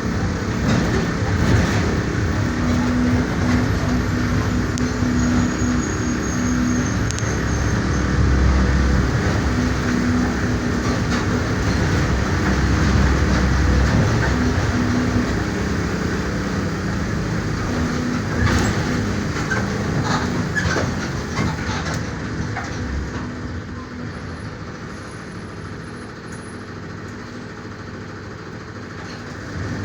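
Mercedes-Benz OF-1418 city bus's front-mounted diesel engine running under load as the bus drives, with road rumble and rattles from the bodywork. The engine pulls hard for the first half, then eases off and settles quieter near the end.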